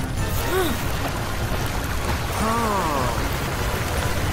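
Water spraying from a cartoon fire engine's hose in a steady hiss, under background music. Two short pitched sounds cut through it, each rising then falling in pitch, about half a second in and again about two and a half seconds in.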